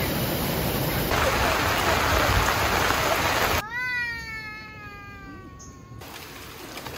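Waterfall pouring into a rock pool, a steady rush of water. About halfway through it cuts to a single long call that slides down in pitch for a couple of seconds, over a soft hiss of rain.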